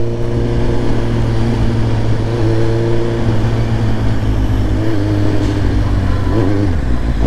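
Suzuki GSX-S750's inline-four engine running at steady part-throttle cruise, a constant low hum over wind noise. The revs drop near the end.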